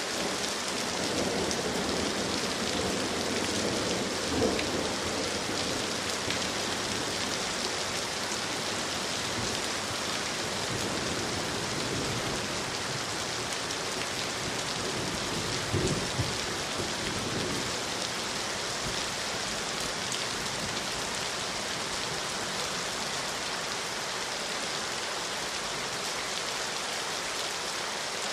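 Steady rain falling, an even hiss of drops on leaves and ground. There are a couple of brief louder patches, about four seconds in and again around sixteen seconds.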